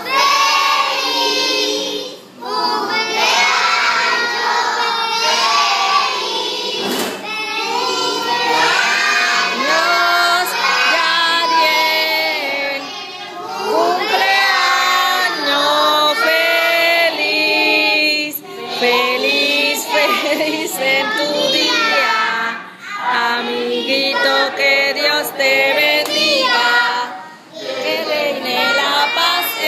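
A group of young children singing together, with a few short breaks between phrases.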